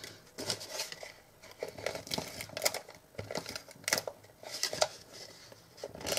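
Cardstock being handled and folded by hand: irregular rustling and crinkling with small, sharp clicks and taps.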